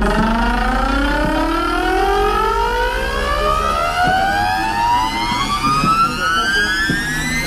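A car audio system playing a test-tone frequency sweep loud: one tone gliding steadily upward in pitch from low to high, with several overtones rising alongside it.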